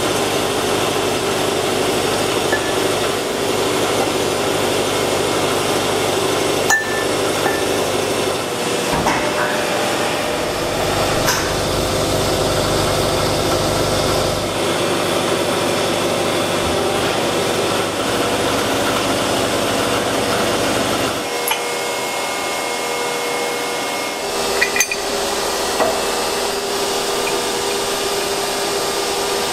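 Steady hum of factory machinery, with a few sharp metallic clinks as steel tubes and fittings are handled. The low rumble in the hum drops away about two-thirds of the way through.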